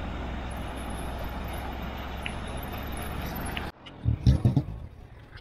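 Small pickup truck driving through floodwater on the road: the engine runs steadily while the wheels spray water. The sound cuts off abruptly a little after three and a half seconds, and a few short low thumps follow.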